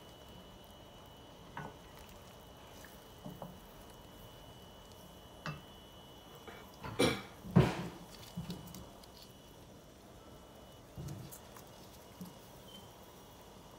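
Wooden spoon knocking and scraping against a stainless steel pot while butter is stirred; a handful of scattered knocks, the loudest two close together about seven and a half seconds in.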